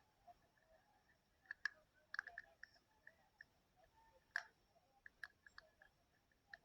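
Faint, irregular clicks of a Master Lock single-dial combination padlock's dial being turned while the lock is held under tension, with a few louder clicks among them. The dial is being turned to feel for the point where it comes to a dead stop, in search of the first number of the combination.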